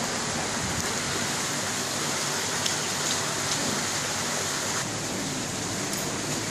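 Water of an artificial waterfall pouring and splashing steadily into its pool.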